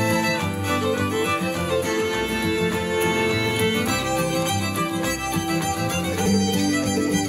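Instrumental music led by violin, played back through a portable Bluetooth speaker and recorded for a sound comparison.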